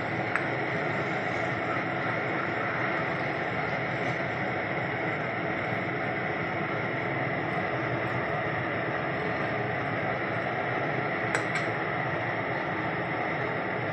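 Steady noise of curry gravy cooking in a steel pan over a strong gas burner, with a steel ladle clinking against the pan twice, about half a second in and near the end.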